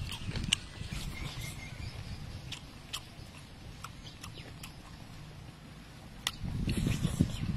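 Close-up eating sounds of a person biting and chewing a chicken leg: scattered wet lip smacks and clicks, with a low rumble that grows louder near the end.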